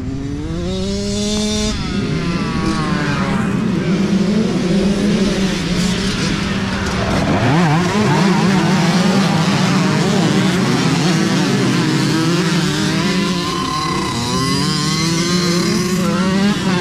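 A pack of youth dirt bikes revving and accelerating past, several engines at once with their pitches rising and falling over one another, loudest midway as the bikes come closest.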